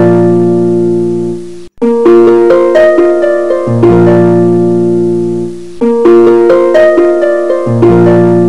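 Background instrumental music: a light melody of plucked, piano-like notes in a short phrase that repeats about every two seconds, with a brief break in the sound about two seconds in.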